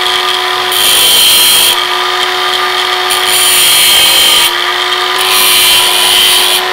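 Angle grinder running at a steady speed, with the disc pressed three times against the protruding tips of steel screws, each contact adding a loud grinding hiss over the motor's whine.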